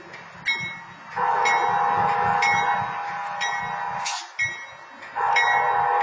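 Railroad crossing bell ringing about once a second while a horn sounds two long blasts, the first about three seconds long and the second starting about a second after it ends. Under them runs the low rumble of a slow-moving locomotive.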